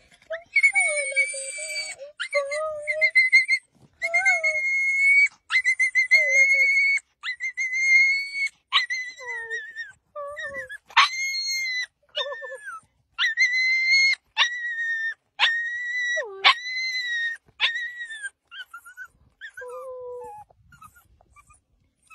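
Frightened puppy whining: a long run of high-pitched whines, each held and then falling away at the end, with shorter, lower whimpers between them. The whines thin out near the end.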